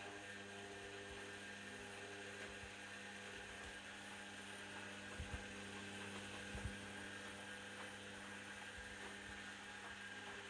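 Candy Activa Smart washing machine running early in a Cottons 40° wash: a steady electrical hum that starts and stops abruptly, with a couple of soft low thumps near the middle.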